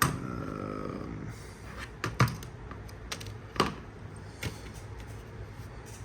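About five small, sharp clicks and taps, spread out and irregular: fingers working a component's wire legs back into the holes of a turntable's circuit board and handling small parts and tools.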